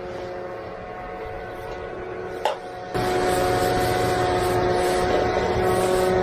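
Small gas engine on a vibrating power screed running steadily, then throttled up about three seconds in to a louder, steady run, with a sharp click just before.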